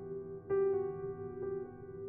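Slow background piano music: a new note or chord struck about once a second and left ringing.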